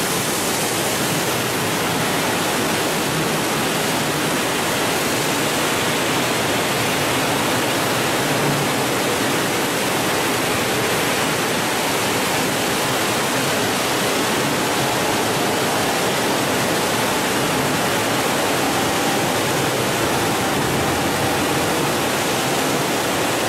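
Julun SPG automatic granite polishing line running: a loud, steady wash of noise from its row of polishing heads and their cooling water, with no change in level.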